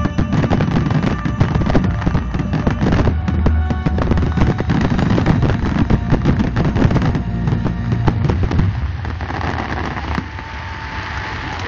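Fireworks finale: a dense barrage of aerial shells bursting in rapid succession over a deep rumble. About nine seconds in the bangs thin out and crowd cheering and applause rise.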